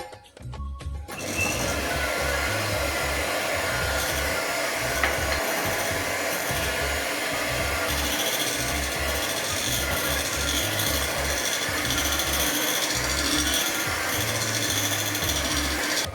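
Electric kitchen mixer running steadily as it beats cupcake batter. It starts about a second in and cuts off near the end.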